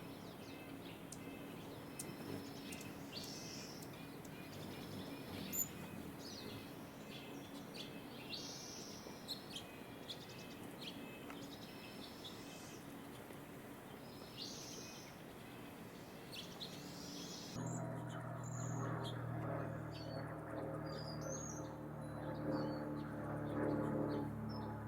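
Small songbirds giving short, scattered chirps and calls over a steady background hiss. About two-thirds of the way through the background changes abruptly and a steady low hum joins the chirping.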